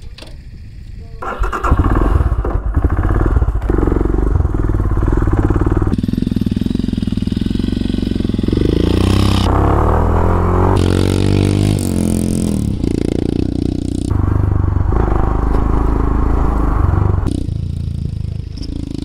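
Royal Enfield Himalayan's single-cylinder engine pulling away and riding across rough grass. The engine note shifts abruptly every few seconds, with a wavering rise and fall in pitch near the middle.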